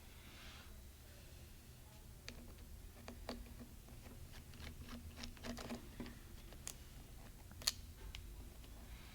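Faint, scattered small clicks and ticks of a screwdriver backing out the small screws that hold a laptop's battery pack, with one sharper tick near the end.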